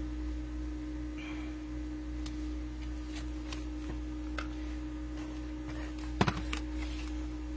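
Small cardstock pieces being handled and pressed down on a wooden craft table: a few light taps and a sharper double tap about six seconds in, over a steady low hum.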